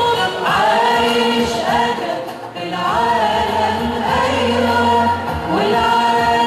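Church choir singing an Arabic hymn over steady sustained accompaniment, with a short break between phrases about two and a half seconds in.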